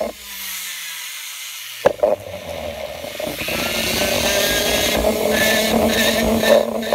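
Handheld rotary tool with a small bur grinding the edges of sterling silver letters. Its motor winds down just after the start, there is a click about two seconds in, then it spins back up with a rising whine and runs steadily with a high grinding hiss.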